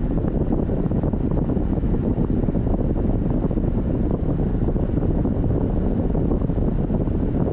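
Steady low rumble of a car on the move: road and wind noise, with no distinct engine note or other events.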